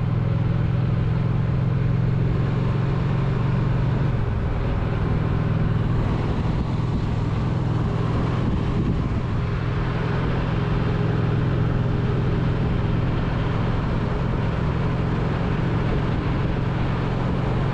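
Motorcycle engine running steadily at cruising speed, with wind and road noise rushing over the microphone.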